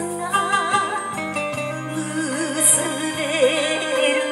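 Enka ballad: a woman singing with a wavering vibrato over orchestral backing.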